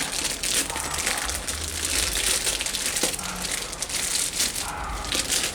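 Plastic bag crinkling and crackling as a new automatic transmission filter is unwrapped from its packaging.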